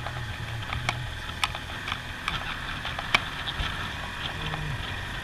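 Motorcycle engine running on the move, its pitch rising and falling with the throttle, over a low rumble. Irregular light clicks and rattles are heard throughout.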